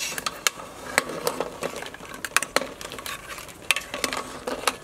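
Hard-boiled eggs being scooped from a steel pot of boiling water with a wire mesh skimmer: irregular sharp clicks and knocks of the eggs and the metal skimmer against the pot, over the bubbling of the water.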